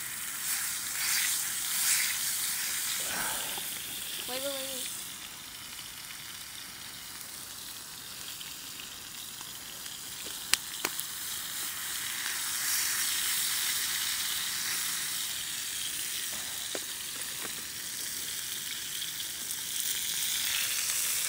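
Thick steak sizzling and frying in an oiled cast iron pan over hot campfire coals, a steady crackling hiss. One sharp tap about ten seconds in.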